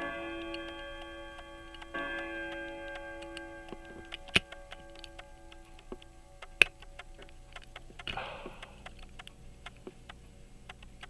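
Small metal clicks and taps from tweezers and pocket-watch parts being worked into place, with two sharp taps about four and six and a half seconds in and a brief rustle near eight seconds. A bell-like chime rings at the start and is struck again about two seconds in, each stroke fading slowly.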